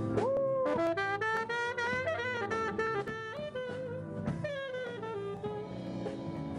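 Jazz music: a saxophone playing a melody with sliding, bending notes over drums.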